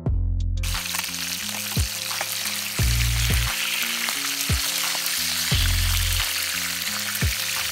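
Whole snapper frying in hot oil in a pan: a loud, steady sizzle that starts about half a second in. Background music with a bass beat plays underneath.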